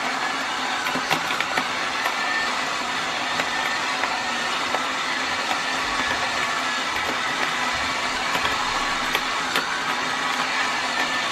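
Small portable electric coffee grinder with a ceramic conical burr running steadily, with scattered clicks through the whirring.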